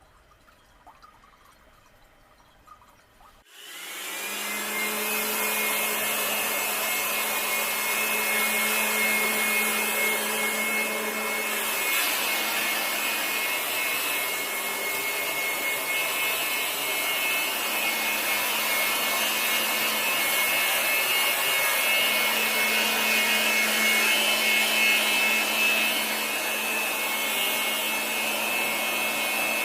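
A small motorised garden tool starts about three and a half seconds in, spins up over about a second and runs steadily with a low hum and a high whine over a hiss.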